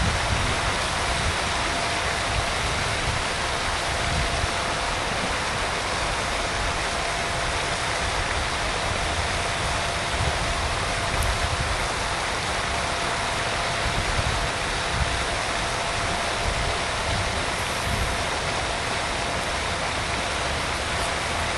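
Steady rushing outdoor noise with irregular low rumbles throughout, typical of wind buffeting the microphone.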